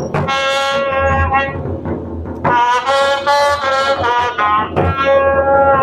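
Music: a melody of long held notes on a brass or reed-like wind sound over a low, pulsing beat.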